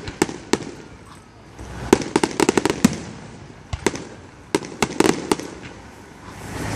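Aerial firework shells bursting overhead: sharp bangs and crackles in clusters every second or two, with quieter spells between.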